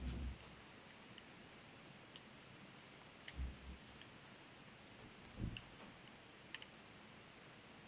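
Faint, sparse clicks of knitting needles tapping against each other during knitting, with a few low handling thuds near the start, a little after three seconds in and about five and a half seconds in.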